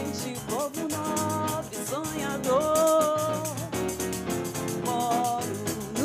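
Samba played on a Roland keyboard with a tambourine's jingles keeping a busy rhythm, under a woman singing long held notes that slide up into and down out of pitch.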